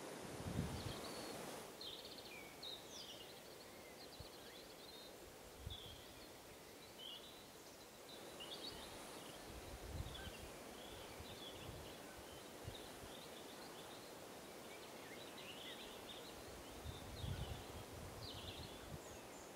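Faint outdoor birdsong: many small birds chirping and calling in short, high phrases over a light background hiss, with a few soft low bumps now and then.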